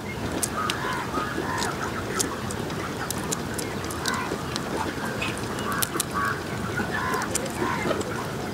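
Domestic fowl calling over and over in short, repeated calls above a steady background, with scattered small sharp clicks.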